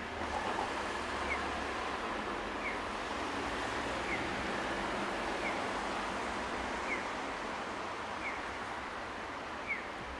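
Steady road-traffic noise from cars driving along a wide city street. Over it, a short high chirp repeats evenly about every one and a half seconds.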